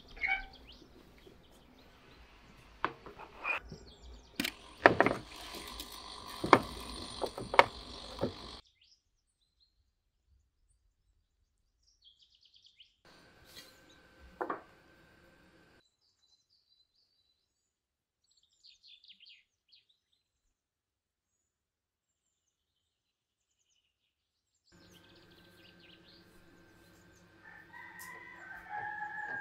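Several sharp knocks and clanks as the iron door of a wood-fired brick oven is handled, with small bird chirps in between. Near the end a rooster crows once, a call of about two seconds that falls at its close.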